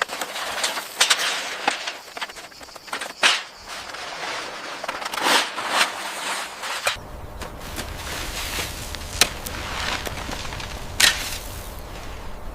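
A run of sharp, irregular knocks and clicks over a steady hiss, the loudest about three seconds in and again near the end; the background changes suddenly about seven seconds in.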